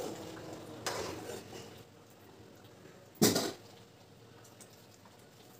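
Steel ladle clinking against a steel cooking pot a couple of times, then one louder clank of metal on metal about three seconds in.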